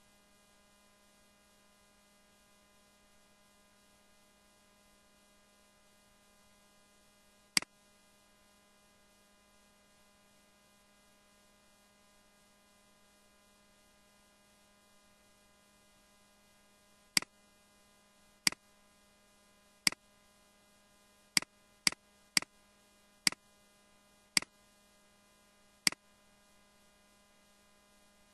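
Ten sharp, separate clicks of computer keys or buttons being pressed: one about seven and a half seconds in, then nine more over the last ten seconds, irregularly spaced. Under them runs a steady low electrical hum.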